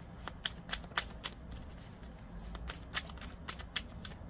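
A deck of tarot cards being shuffled by hand: a run of short, sharp card flicks and snaps, coming in two bunches, in the first second and again around three seconds in.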